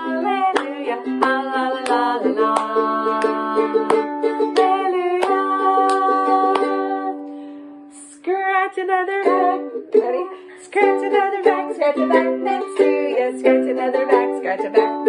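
Ukulele strummed and plucked to accompany a children's song. The playing dies away about seven seconds in, then the strumming starts again about a second later.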